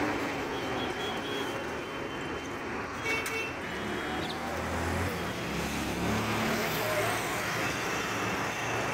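Steady road traffic noise: a continuous wash of passing vehicles, with a low engine rumble swelling about four to six seconds in.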